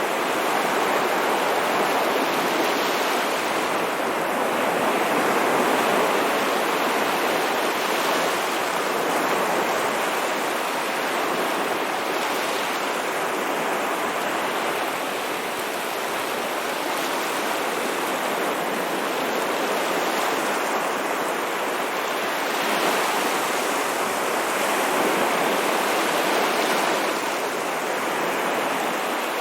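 Ocean waves washing onto a shore in a continuous, even wash of surf that swells and eases gently.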